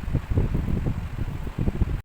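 Air buffeting the microphone: an irregular low rumble of gusts that cuts off abruptly at the end.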